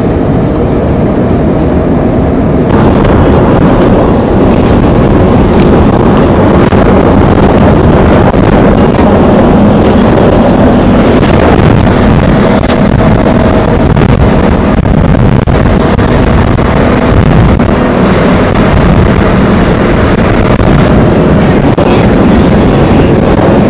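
Wind rushing in through the open window of a moving Toyota HiAce minibus, mixed with the van's engine and road noise. The wind gets louder about three seconds in.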